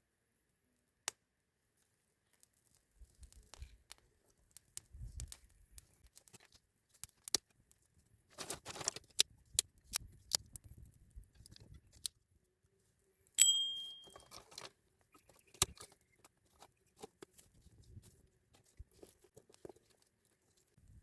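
Food-preparation handling sounds: scattered clicks, taps, rustling and tearing of packaging, with one sharp clink about two-thirds of the way through that rings briefly.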